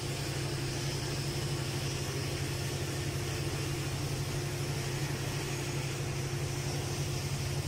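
Steady low mechanical hum of running machinery, an even drone with a faint steady tone above it and no change throughout.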